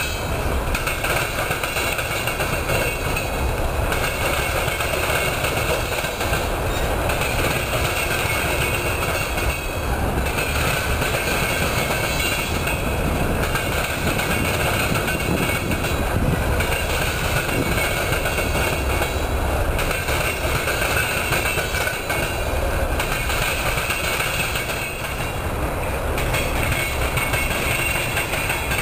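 Freight train of coal hopper cars rolling steadily past, the steel wheels clattering over the crossing tracks of the junction. A higher grinding band swells and fades every few seconds.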